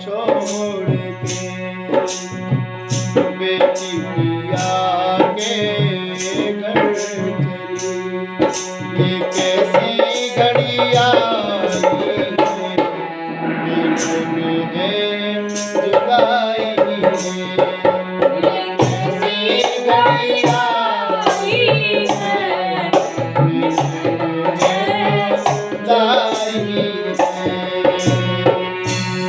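Instrumental music between sung verses of a Hindi farewell song: a steady, evenly repeating drum rhythm under a gliding melodic instrument line.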